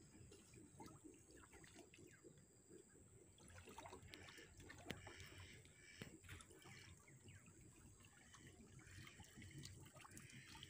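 Faint sloshing and trickling of shallow pond water stirred by a person wading and working a bamboo-framed mosquito-net scoop net, with small drips and splashes.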